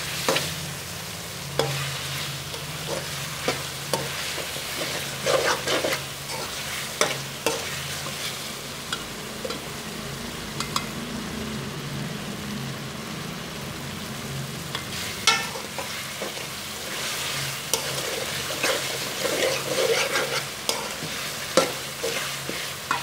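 Chicken, onion and tomato masala sizzling in oil in a metal karahi while a metal spatula stirs it, scraping and clicking against the pan at irregular intervals. This is the bhuna stage: the spiced masala is being dry-fried without water on low heat.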